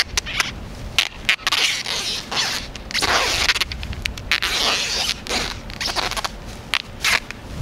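Adhesive tape being pulled off the roll in a series of short and longer ripping rasps.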